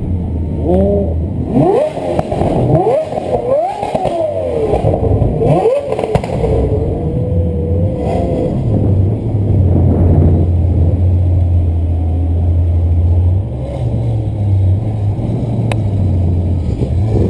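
Sports car engine revving in repeated quick rising blips over the first few seconds, then running more evenly over a steady low hum.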